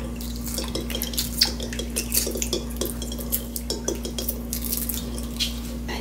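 Hard-boiled egg being peeled by hand in a glass bowl of cold water: irregular small clicks and crackles of shell breaking away and knocking against the glass, with light water sounds.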